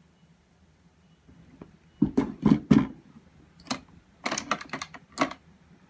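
Knocks and clicks of makeup tools being handled and set down, a palette and brushes being swapped. Three loud knocks come about two seconds in, then a quicker run of clicks and knocks a second or so later.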